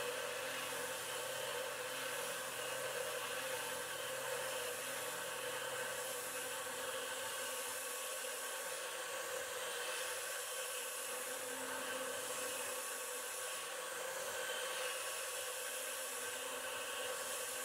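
Precision Matthews PM25MV CNC mill boring aluminum with a 1/4-inch three-flute stub end mill at 2500 RPM: a steady whir and hiss of the spindle, the cut and the coolant spray. A low hum drops out about seven seconds in.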